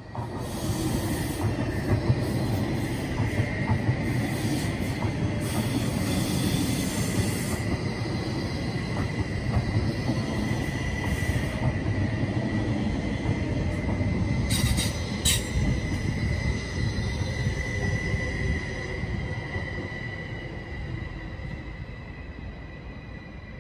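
Double-deck passenger train running past on curved track, wheels rumbling with a steady high-pitched wheel squeal, a few sharp clicks from the wheels over the rails, fading as the train moves away near the end.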